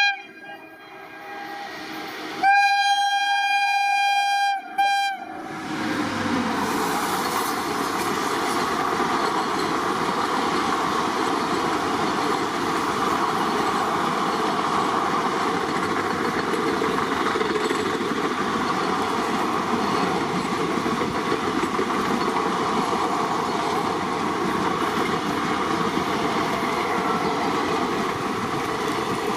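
Indian Railways locomotive horn: one long blast and a short blast a few seconds in. Then a passenger train passes close by with a steady rolling rumble of wheels on rail.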